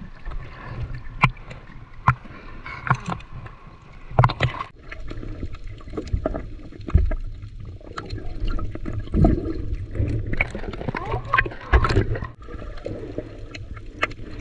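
Sea water sloshing and gurgling around a small fishing boat, with a steady low rumble and scattered sharp knocks from handling the net and the catch on board.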